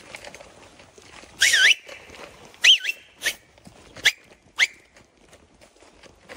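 A person whistling loudly to scare off wild animals ahead in the woods: about five sharp whistles, the first ones warbling, the last ones short upward flicks.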